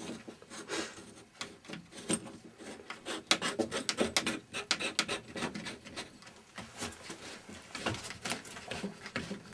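Hose fittings being threaded on by hand at the ports of a geothermal pump unit: irregular rubbing, scraping and small clicks of the fittings and hands against the unit, busiest in the middle. The fittings are only hand-tightened, with O-rings making the seal.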